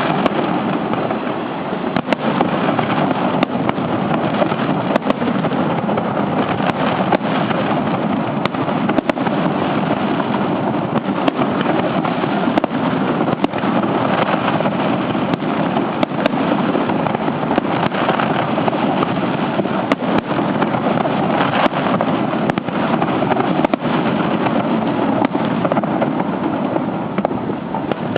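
Fireworks going off in a dense, continuous barrage, bursts and crackles overlapping into a steady rumble with many sharp cracks throughout.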